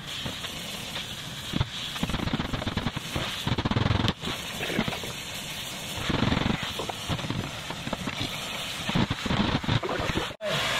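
A gas torch heating a bent steel piece, making a rough crackling noise with scattered knocks as the steel is pried and hammered straight.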